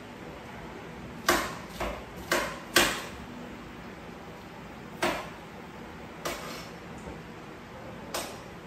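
Sharp clacks and knocks of kitchenware being handled and set down on a countertop: four in quick succession about a second in, then three single ones spread over the rest.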